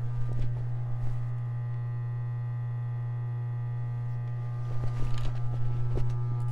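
Adler flatbed industrial sewing machine's motor humming steadily, with a few scattered clicks near the start and again about five seconds in.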